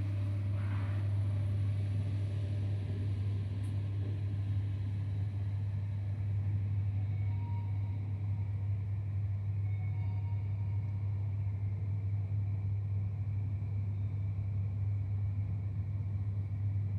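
Hitachi elevator car travelling between floors: a steady low hum at an even level.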